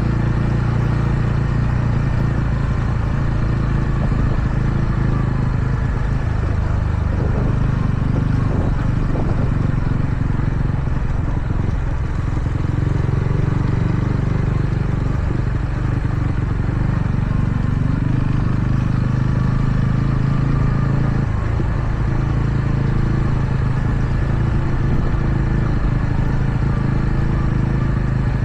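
TVS Ronin's single-cylinder engine running under way. Its note dips and rises with the throttle a few times, over a steady rush of noise.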